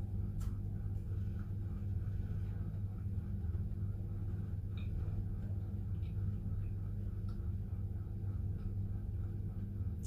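Steady low electrical hum with a faint, even ticking, and a few faint crisp clicks of a biscuit being bitten and chewed.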